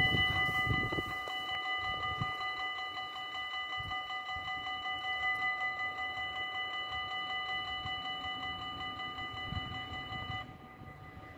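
Level-crossing bells of a Dutch AHOB (automatic half-barrier) crossing ringing in a steady, ringing chime while the half barriers lower. They cut off suddenly about ten seconds in, as the barriers reach the down position.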